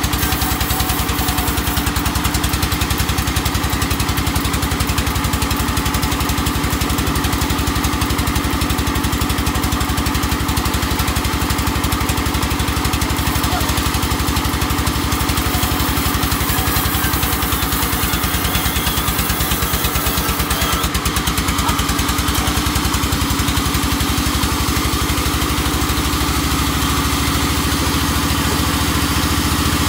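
Engine of a small sawmill running steadily, with a fast, even beat.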